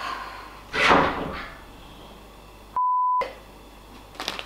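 A censor bleep: a single steady beep near 1 kHz, about half a second long, about three seconds in, with all other sound muted beneath it. About a second in there is a short, loud, noisy sound.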